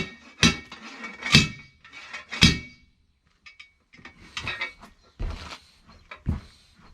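Metal tools clanking against the tractor wheel as the tyre is taken apart: three sharp ringing clanks in the first couple of seconds, then lighter clinks and knocks.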